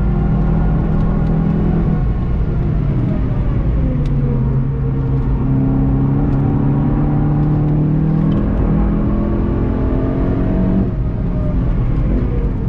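VW Golf 7 GTI TCR's turbocharged four-cylinder engine heard from inside the car under hard driving. The note falls as the car slows for a corner, then climbs steadily as it accelerates out, drops at a gear change a little over 8 seconds in and dips again briefly near the end, all over steady road noise.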